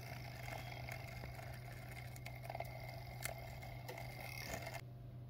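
Faint scratching and a few light ticks of a thin metal pick scraping old adhesive off cracked phone screen glass, over a steady low hum.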